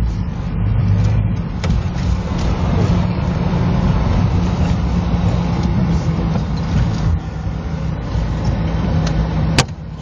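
Car engine running and tyres on a snow-covered road, heard from inside the moving car as a steady low drone over noise. There is one sharp click about a second before the end.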